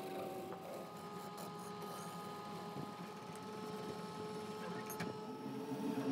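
Wood lathe running steadily with a turning tool cutting the spinning segmented wooden bowl.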